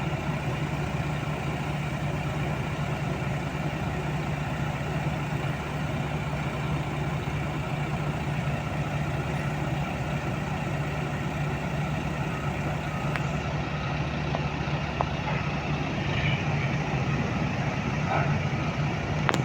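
Heavy diesel engine running steadily at an even speed, a constant low hum, with a few faint clicks.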